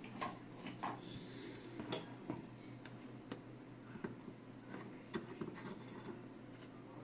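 Soldering iron tip clicking and scraping lightly on a TV circuit board as a small surface-mount resistor is desoldered, with scattered faint clicks over a low steady hum.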